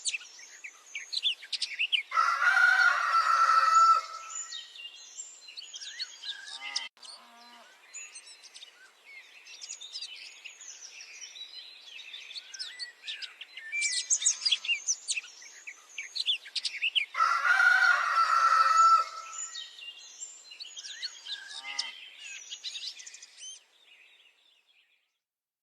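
Small birds chirping continuously, with a rooster crowing twice, each crow about two seconds long and the loudest sound; the calls fade out near the end.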